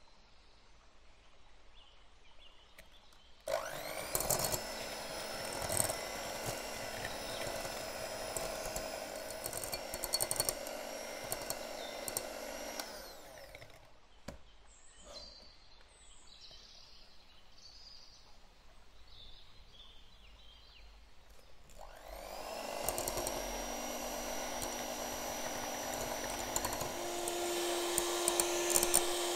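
Electric hand mixer with twin beaters whipping cream, its motor running in a steady hum. It starts a few seconds in, stops for several seconds in the middle, then runs again, with a change in tone near the end.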